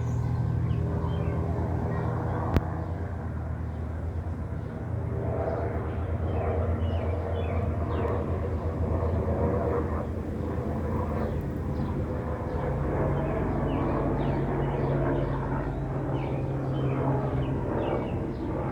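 Steady low motor drone with a deep hum that shifts slightly in pitch about two-thirds of the way through. A single sharp click comes about two and a half seconds in.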